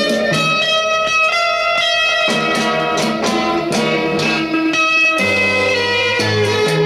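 Guitar-led music played from a vinyl record on a Thorens TD 295 MK IV belt-drive turntable, with a steady bass line under plucked guitar notes.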